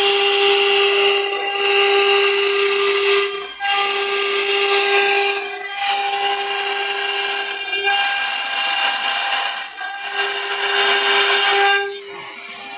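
CNC router spindle with a water-cooled bit grinding into a stone slab: a steady high whine over a harsh grinding noise that breaks briefly about every two seconds. About a second before the end it goes much quieter while the spindle whine carries on.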